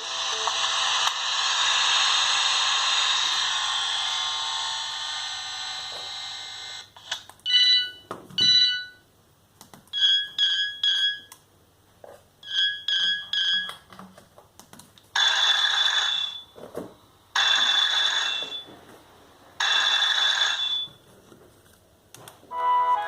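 Siemens M55 mobile phone ringtones played one after another: a dense electronic tone fading out over the first several seconds, then two short beeps, two quick groups of four beeps, and three long telephone-style rings about two seconds apart.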